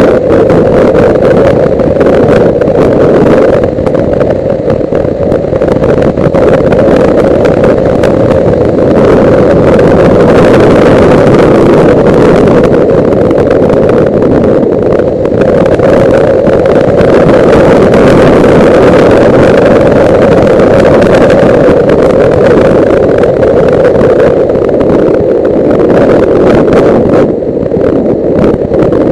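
Suzuki GS500E's air-cooled parallel-twin engine running steadily at road speed, mixed with heavy wind noise on the helmet-mounted microphone. The level eases slightly a few times.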